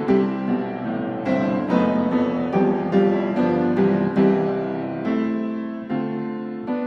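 Background piano music: a slow melody of single notes that ring and fade.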